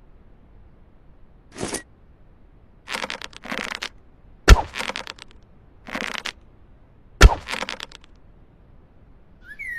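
Bow and arrow sound effects: short noisy swishes and two sharp cracks, one about halfway through and one about three seconds later, each followed by a brief noisy tail. Birds start chirping right at the end.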